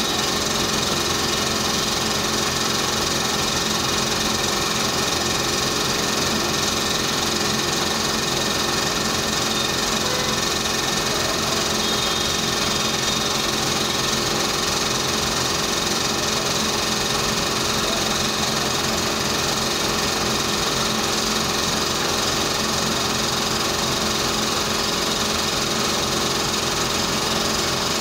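Dental treatment equipment running without a break: a steady motor hum with a continuous whirring hiss.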